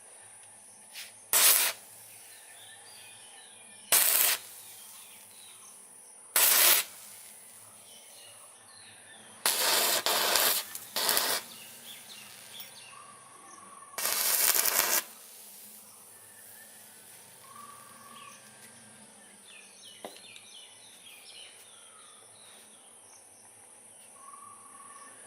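Arc welding with a homemade welder powered by three 12 V batteries: the electrode is struck in a series of short crackling, hissing bursts, three brief strikes and then two longer runs of about a second or two. Faint bird and insect chirps sit underneath.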